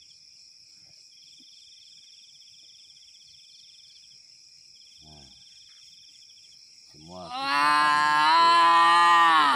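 Night insects trill steadily and faintly. About seven seconds in, a loud, long drawn-out call with a steady pitch starts and holds for about two and a half seconds before it cuts off suddenly.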